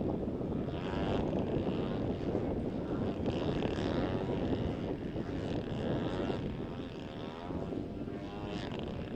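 RC aerobatic model airplane (an MXS) flying overhead, its engine and propeller running steadily with a pitch that rises and falls as it manoeuvres. The sound is a little softer near the end.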